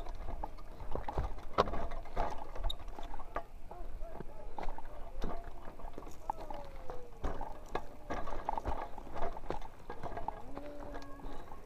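Mountain bike rolling down a rough dirt and stone trail: tyres crunching over the ground, with many irregular knocks and rattles as the bike jolts over rocks.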